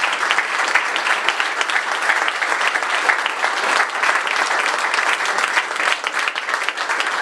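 A crowd in a small room applauding steadily, many hands clapping at once.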